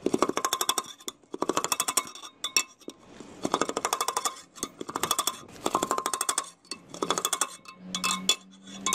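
Long metal spatula scraping and clinking against the inside of a large metal degh as cooked chana pulao is turned over. It comes as repeated scrapes, roughly one a second, each a quick rattling run of metallic clicks.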